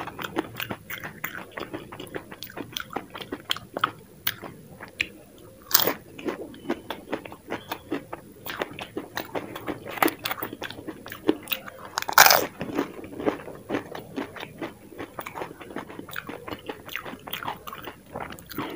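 Close-up mouth sounds of a person chewing crisp dahi puri (golgappa shells filled with yogurt): steady crunching and chewing, with a few louder crunches about 6, 10 and 12 seconds in.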